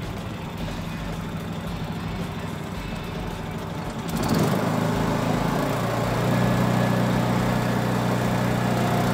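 Briggs & Stratton Vanguard engine of a Groundhog RH12G ride-on vibrating roller running just after a key start. About four seconds in it gets louder and settles into a steadier, even tone.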